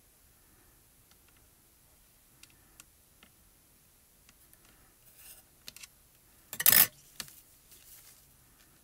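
Craft work on a cutting mat: a few light clicks and taps of tweezers and paper, then a brief loud rustle about six and a half seconds in, as the card is slid and handled.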